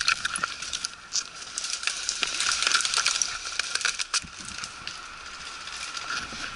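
Irregular crunching and rattling clicks over a steady hiss: a player's footsteps and the gear he carries as he moves.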